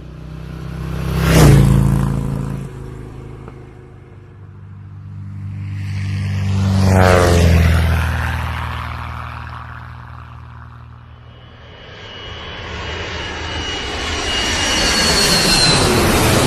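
Fast engine-driven vehicles passing by in turn: a quick pass about a second and a half in, a slower one around seven seconds whose pitch falls as it goes by, then another approaching near the end with a rising high whine.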